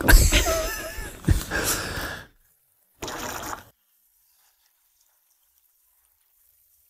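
Indistinct voices and close handling noise for about two seconds, which stop abruptly; a short hiss follows about three seconds in, then silence.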